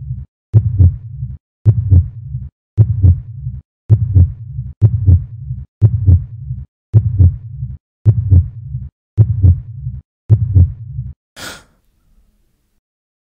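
Heartbeat sound effect: deep double thumps, about ten of them, evenly spaced roughly once a second. About eleven and a half seconds in they stop with one short sharp noise burst.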